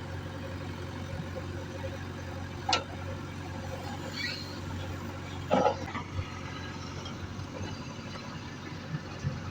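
Heavy diesel engine running steadily at the loading site, with two short sharp knocks, the louder one about halfway through.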